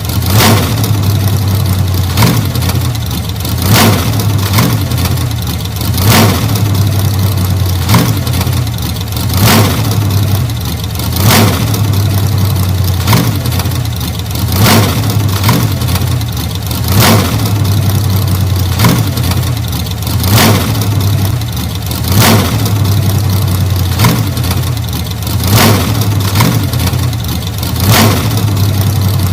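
1940 Ford flathead V8 engine running steadily with a low, even hum, broken by a short sharp surge about every two seconds.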